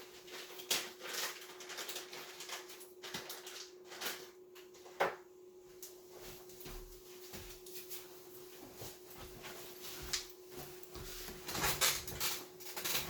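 A faint, steady low tone from the (tr)uSDX transceiver's audio: the weak test signal from the signal generator being received near the limit of sensitivity. Over it come irregular clicks and knocks of equipment being handled, with the loudest about 5 seconds in and near the end.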